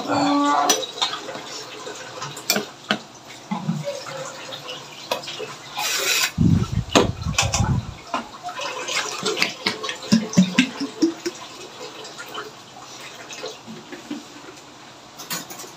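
A metal spoon clinking and knocking against a plastic mixing bowl and a steel strainer as drained nata de coco is scooped in, with syrup dripping and trickling through the strainer into a steel basin. A louder stretch of handling noise comes about six seconds in.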